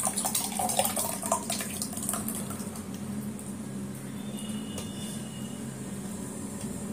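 Semiya payasam (vermicelli kheer) poured from a steel pot into a steel tumbler, splashing and gurgling as it fills, loudest in the first two seconds.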